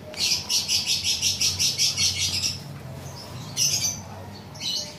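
An animal's rapid chirping trill, about seven chirps a second for a little over two seconds, followed by two short bursts of chirps later on.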